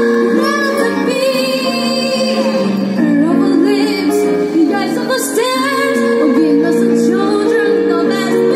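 Live music: a woman singing into a microphone, with long held notes that waver, over a string ensemble of violins and cello, played through stage speakers.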